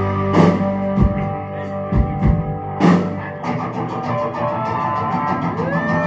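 Live rock band playing an instrumental passage on electric guitars, bass and drums. Held guitar chords ring under a few heavy drum hits, then the band moves into a fast, driving rhythm about three and a half seconds in.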